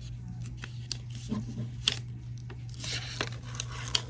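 Packaging being handled during an unboxing: paper and plastic rubbing and tearing, with scattered small clicks and a louder rustle about three seconds in, over a steady low hum.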